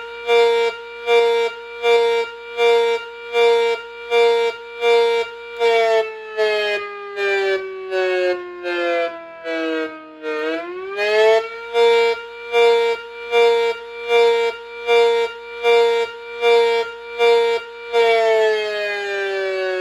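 Mini A.C.A. Cyclone 125 siren, its intake ports mostly taped over, sounding a simulated pulse signal: its tone is chopped into pulses about every three-quarters of a second. Around the middle the pitch falls and rises back, a pulsed wail. Near the end the pulsing stops and the siren winds down with a steadily falling pitch.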